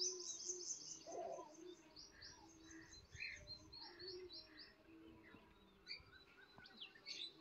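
Ducklings peeping in rapid runs of short, high chirps, busiest in the first couple of seconds and then thinning out.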